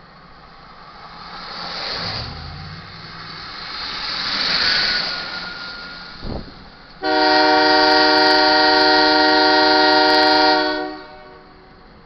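Horn of an approaching Union Pacific GE AC4400CW locomotive sounding one long, steady multi-tone blast of about four seconds for the grade crossing. Before it, tyre and engine noise from vehicles passing on a slushy road swells twice, with a short thud just before the horn.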